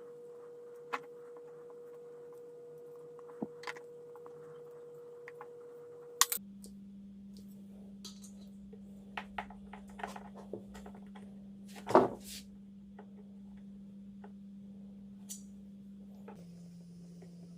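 Scattered light metallic clicks and taps from handling copper brake-line tubing and its fittings while bending it by hand, with one louder knock about twelve seconds in.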